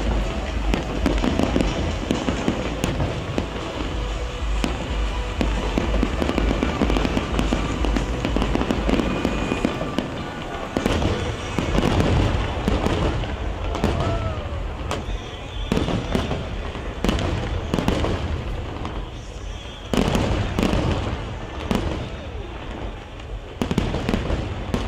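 Large aerial fireworks display going off. It is a dense, continuous rumble of bursts for the first ten seconds or so, then turns into many separate sharp bangs and crackles.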